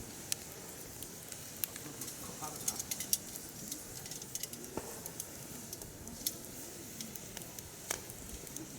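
Firewood burning in a mesh campfire stand, crackling: irregular sharp pops and snaps over a steady hiss, with a quick flurry of pops about three seconds in.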